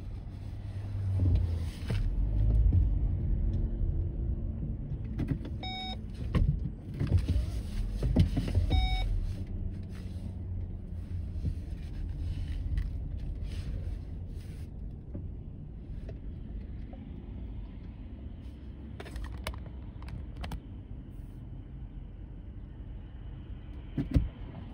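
Car driving slowly on a city street, its engine and tyre rumble heard from inside the cabin, louder in the first half and quieter later. Two short beeps sound about six and nine seconds in, and a few sharp clicks come near the end.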